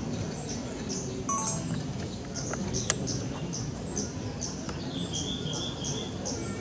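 A bird chirping in a steady series of short, high calls, about two a second, over a low background murmur, with one sharp click near the middle.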